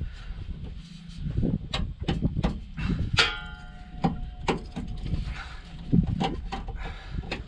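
A steel pry bar knocking and scraping against the truck's frame while levering a press-fit rubber bump stop out of its mount, a run of irregular clanks. One strike about three seconds in rings on with a metallic tone for about a second.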